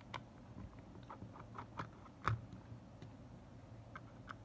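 Small screwdriver turning the screws on the back of a Sony WM-EX85 cassette Walkman: faint scattered clicks and ticks of the tip on the screw heads and case, the sharpest about two seconds in.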